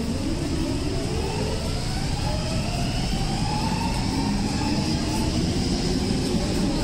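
Helsinki metro train's electric traction motors whining as it pulls away from the platform, over a steady low rumble. The whine rises in pitch over the first few seconds, then a lower whine starts climbing again near the end.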